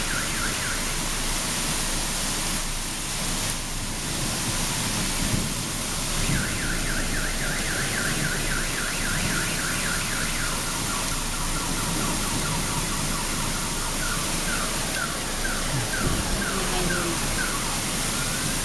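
Rain pouring steadily onto a street, with a car alarm sounding over it in rapid repeated chirps. The alarm stops about a second in, comes back about six seconds in and switches to slower, spaced chirps in its later part.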